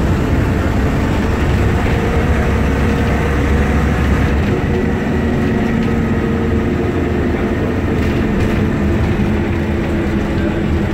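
Ikarus 280 articulated bus's diesel engine running steadily, with a deep low rumble that eases about four seconds in.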